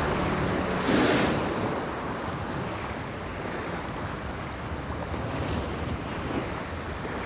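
Sea surf washing, with wind buffeting the microphone; a louder rush of water about a second in.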